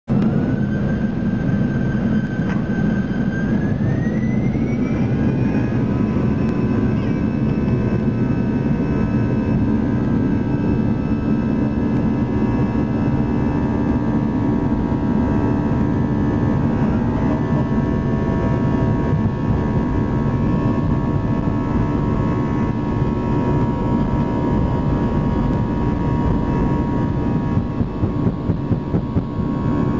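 Airbus A319's jet engines heard from inside the cabin: a steady low rumble with a whine that rises in pitch about four seconds in and then holds, as the engines spool up to takeoff power.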